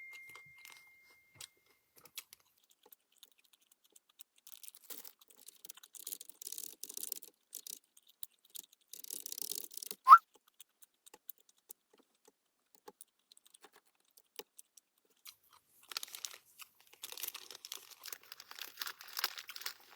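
Plastic wrapper of a packaged chocolate bread being crinkled and torn open in scattered bursts, with one short rising squeak about halfway through.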